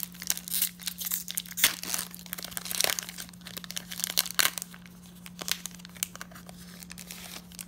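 Foil wrapper of a Pokémon TCG booster pack being torn open and crinkled, a dense run of crackles and rips. After about five seconds it thins to a few quieter crinkles as the cards are slid out of the wrapper.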